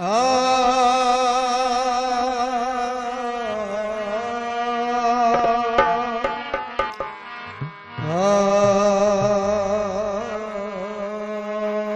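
Opening of a devotional bhajan: long held reedy harmonium notes with a wordless sung note, each sliding up into pitch and wavering slightly, with a short run of hand-drum strokes in the middle before the next held note begins.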